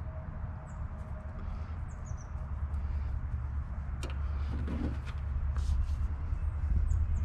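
Steady low hum, with faint short high chirps scattered through it and a light click about four seconds in.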